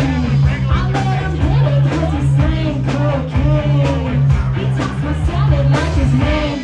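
Music: a rap track with a heavy bass beat and vocals over it, a rock-style guitar and drums.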